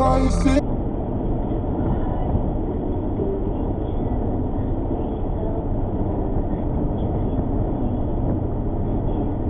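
Steady road noise of a car driving on a highway, heard from inside the cabin: an even tyre and engine rumble, dull, with no high sounds in it.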